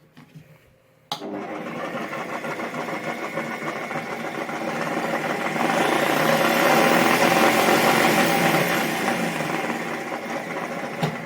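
Table-mounted jigsaw switched on about a second in and running at a low speed setting; it grows louder in the middle, then falls away near the end.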